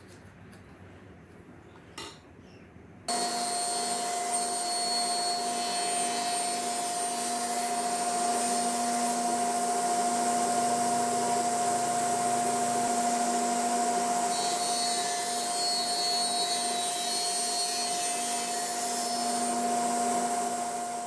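Powermatic table saw running steadily, its blade cutting tenon cheeks in the end of an upright wooden post pushed along the fence. The saw sound comes in abruptly about three seconds in, after a faint stretch.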